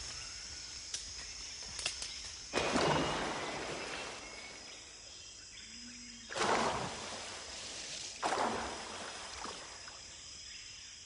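Tropical jungle ambience: a steady high insect whine with three loud, noisy rushing bursts, about two and a half, six and eight seconds in, each fading away over a second or so.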